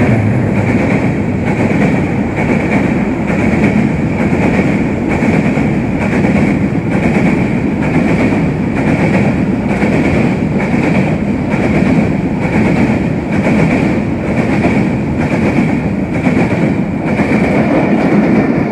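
Freight train of hopper wagons rolling past close by, a loud steady rumble and clatter of wheels on rail with a regular clack about twice a second. A passenger train is passing on the adjacent track at the same time.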